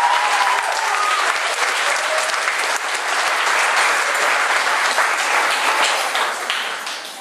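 Audience clapping at the end of a children's performance, fading away near the end.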